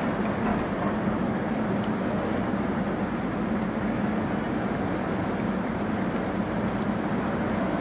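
Heavy rain driven by strong wind, a steady rushing noise with a deep low rumble.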